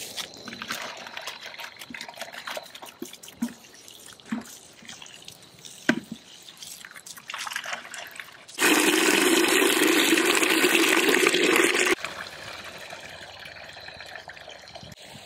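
Garden hose water splashing and trickling onto plastic buckets, with scattered small knocks. About eight and a half seconds in, the hose stream runs into a plastic bucket with a loud, even rush for about three seconds, then drops suddenly to a quieter steady pour into the bucket.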